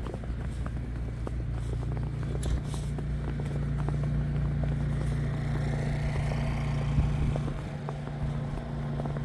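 A motor vehicle's engine running steadily close by, a low hum that holds through the whole stretch, on a city street.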